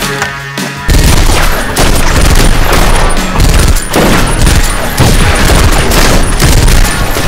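Soundtrack music, then about a second in a sudden, loud, dense barrage of gunfire and boom sound effects that carries on without letting up.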